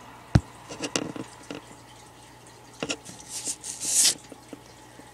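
Handling noise from a phone held against a glass tank: a sharp knock, scattered clicks, then a short scratchy rustle that grows louder up to about four seconds in.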